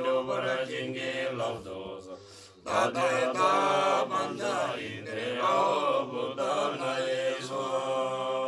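Group of Tibetan Buddhist monks chanting prayers together in a low, steady recitation, with a short break about two seconds in before the chant resumes.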